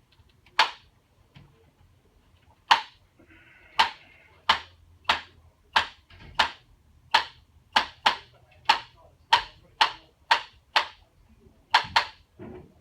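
Hand-held chiropractic adjusting instrument firing a series of sharp clicks, about seventeen in all. The first few come a second or two apart, then they settle to roughly one every half second to second.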